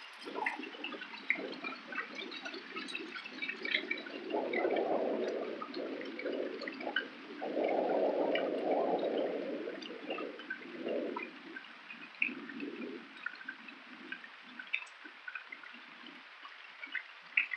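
Heavy rain falling, with many close drops tapping and dripping. The rushing sound swells louder twice, about four seconds in and again around eight seconds, then eases.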